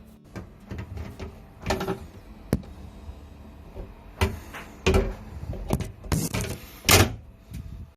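Irregular knocks and clatter of hard objects being handled, about a dozen, the loudest near the end.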